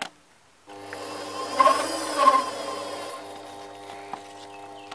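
A small metal lathe is switched on under a second in and runs at low speed with a steady motor hum, louder for a moment just after it starts.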